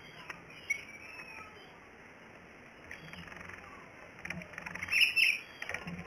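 Caged jongkangan bird bathing in a small water dish, splashing and flicking water with its wings in quick spatters, loudest about five seconds in.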